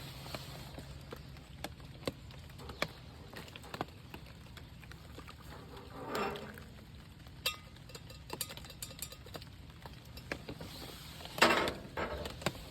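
Scattered light clicks and knocks of camp cooking gear being handled, with a louder clatter about halfway through and the loudest knock near the end.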